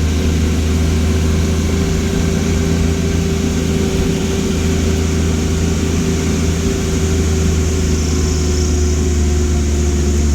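Car engine pulling steadily up a steep mountain climb, working hard under load. It makes a loud, constant low drone with a steady hum above it.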